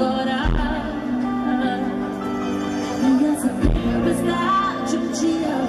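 Live pop ballad: a band playing, with a woman singing into a microphone through the concert sound system. Two deep bass hits land about half a second and three and a half seconds in.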